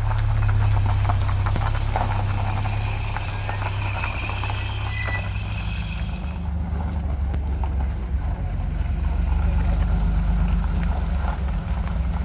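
Classic cars driving slowly over gravel: a low engine rumble, with tyres crunching on the stones through the first half. After that it settles into a deeper, steadier engine sound.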